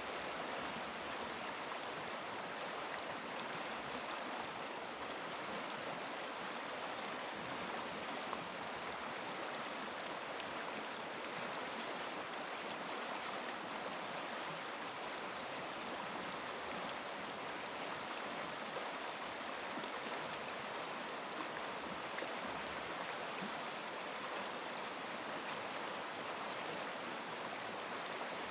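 Shallow river water rushing and babbling over stones, a steady, even rush with no breaks.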